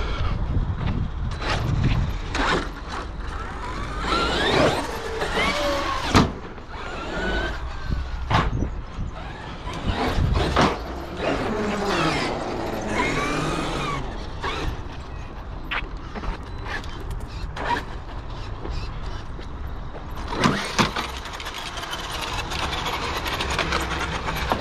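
Traxxas X-Maxx RC monster truck's brushless electric motor whining up and down in pitch as it is driven hard on concrete, with several sharp knocks as it lands jumps and hits the ramps.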